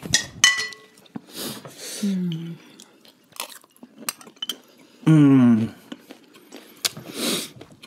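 Spoons clinking against ceramic bowls, a few sharp ringing clinks in the first second, then scattered small clicks and soft eating sounds.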